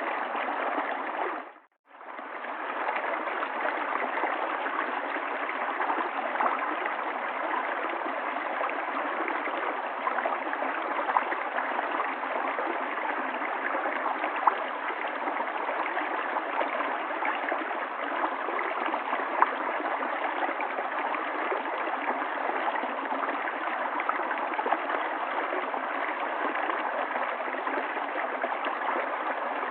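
River water flowing in a steady rush, with small gurgles and splashes through it. It fades out briefly and comes back about two seconds in.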